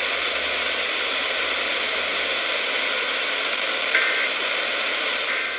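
Weather radio receiver giving a steady hiss of static between broadcast alert messages, with a faint short tone and click about four seconds in.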